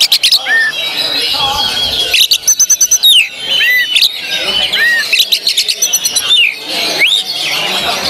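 Oriental magpie-robin (kacer) singing its rapid, varied contest song: short arched whistles mixed with a fast rattle of sharp clicking notes about two seconds in.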